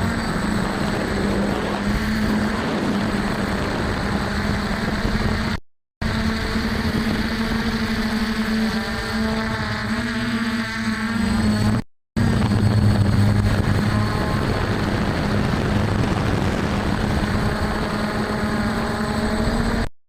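F450 quadcopter's stock motors and propellers humming steadily in flight, the pitch wavering a little midway with throttle changes. The sound cuts out briefly twice.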